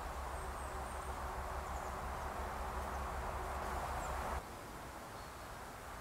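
Quiet woodland ambience with a few faint, high bird chirps over a steady hiss and low rumble; the rumble and hiss drop away about four seconds in.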